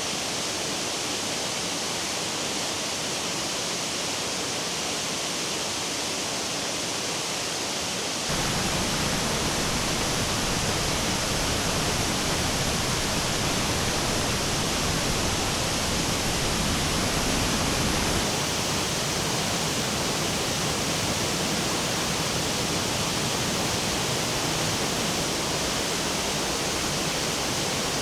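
Steady rushing water. About eight seconds in it abruptly becomes fuller, with a deeper rumble, and about ten seconds later it abruptly drops back to the thinner hiss.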